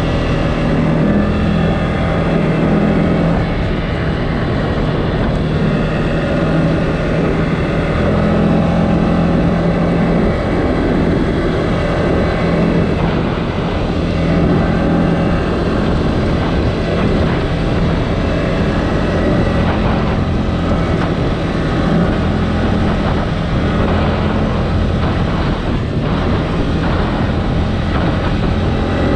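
CFMOTO ATV engine running steadily while riding, its note holding at a fairly constant pitch with small rises and dips, over a steady haze of riding noise.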